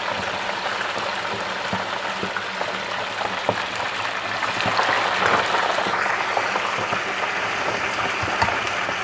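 Pre-baked turkey wings deep-frying in hot grease: a steady, dense sizzle with many small crackling pops.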